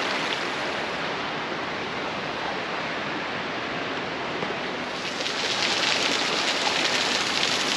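Steady rush of flowing mountain water, growing a little louder and brighter about five seconds in.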